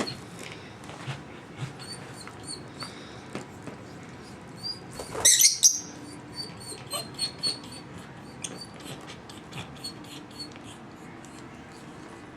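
A pet dog whimpering, with one sharp high cry about five seconds in. Among the whimpers come short high chirps from lovebirds and light clicks.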